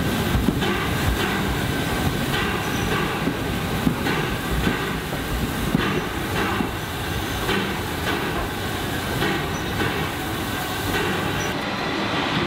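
A train running slowly on the track, its wheels knocking at the rail joints about once a second, with some flange squeal.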